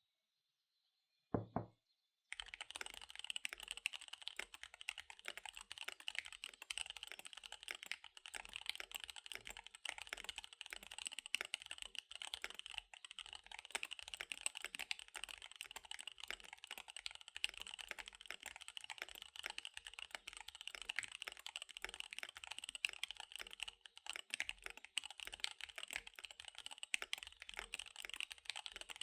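Fast typing on a KBD75 V3 mechanical keyboard with SP-Star Dark Magic Girl tactile switches and DSA keycaps: a dense, unbroken run of keystrokes. It starts about two seconds in, shortly after a single short thump.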